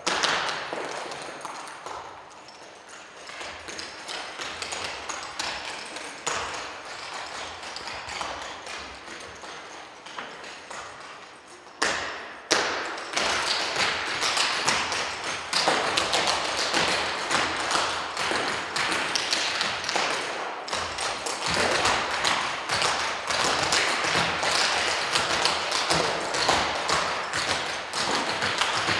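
Percussive dance steps, metal-tapped shoes rapidly striking a wooden stage floor, with no music. The tapping is lighter for the first dozen seconds, then a sharp stamp sets off louder, denser tapping from several dancers together.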